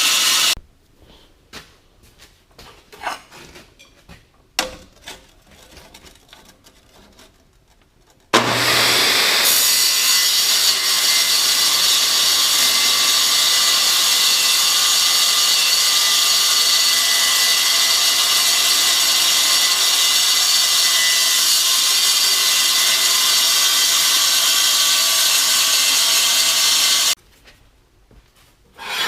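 A power saw cutting through quarter-inch steel plate. One cut ends just after the start, followed by scattered light knocks of metal being handled. About eight seconds in, the saw spins up and cuts with a steady, loud, hissing noise until it stops abruptly near the end.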